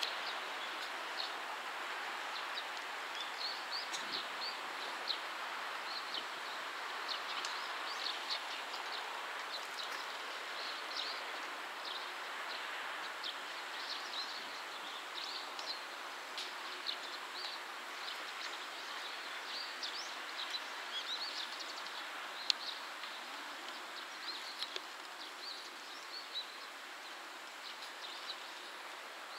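Rural outdoor ambience: a steady hiss with birds chirping irregularly throughout, while a diesel railcar runs faintly in the distance.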